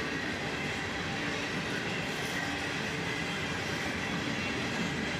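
Covered-hopper freight train cars rolling past: a steady rumble of wheels on rail with a faint, steady high whine.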